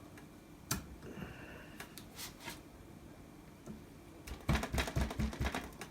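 Small flat screwdriver clicking and scraping against an RJ45 jack, prying off its gold-plated contacts: a few separate clicks, then a quick run of clicks and scrapes near the end.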